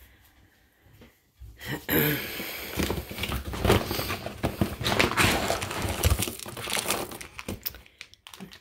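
A bag of dry cat food crinkling as it is opened and handled, then dry kibble clattering into a metal dish, starting about two seconds in and running almost to the end.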